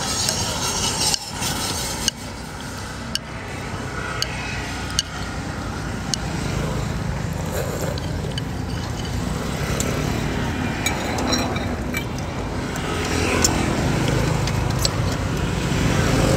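Steady road traffic of passing motorbikes and cars, with a low engine hum growing in the second half. Several sharp clicks of a spoon and chopsticks against the soup bowl come through it.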